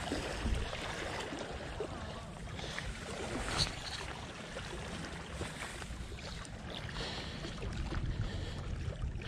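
Wind buffeting the microphone at the seashore: a steady, fluttering low rumble with a hiss over it. There is a single sharp click about three and a half seconds in.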